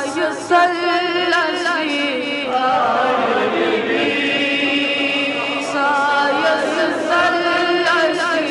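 A boy's solo voice reciting a Kashmiri naat, a devotional song in praise of the Prophet, sung in long melodic phrases with wavering held notes.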